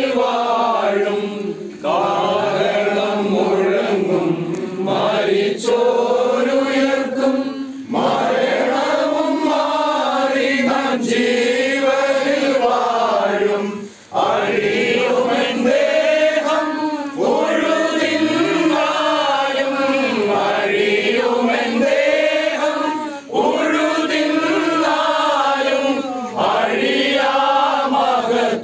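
A group of people singing a hymn together, voices in long sustained phrases with short breaks for breath every few seconds.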